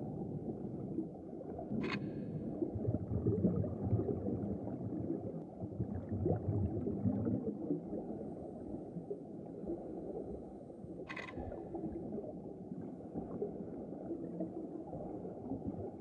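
Underwater reef ambience as a bumphead parrotfish grazes coral: a steady low gurgling rumble of water, broken by two sharp crunching snaps of its beak biting the coral, about two seconds in and again near eleven seconds.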